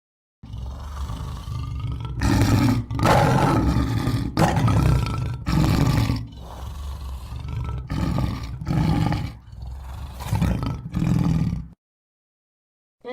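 King Kong roar sound effect: a long, deep growling roar with several louder surges, cutting off suddenly near the end.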